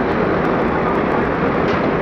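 Heavy machinery engine running steadily with a dense, even rumble.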